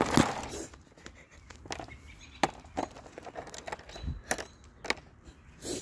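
Handling noise: a scattered series of light clicks and knocks, about half a dozen over a few seconds, the sharpest about two and a half seconds in, with a soft low bump about four seconds in.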